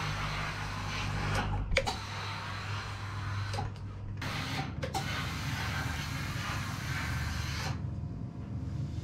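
Steam generator iron running with a steady hum and a hiss of steam, and a few sharp clicks and knocks between about two and five seconds in. The hiss stops shortly before the end.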